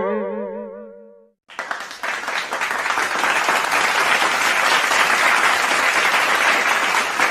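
A pitched note with a fast wobble fades out within the first second or so. Then, about a second and a half in, applause from a crowd starts and runs on at a steady level.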